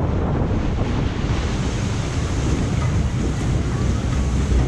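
Water churning and splashing around a crocodile-shaped jet-ski ride vehicle as it is swung around a circular water channel, with wind buffeting the microphone in a steady low rumble.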